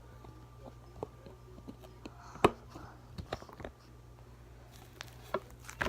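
Slime being squished and worked by hand: scattered small sticky clicks and pops, with one sharper click about two and a half seconds in.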